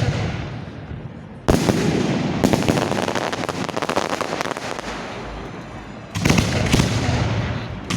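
Fireworks from a display launch site: two loud bursts, about a second and a half in and again about six seconds in, each followed by dense crackling that fades away.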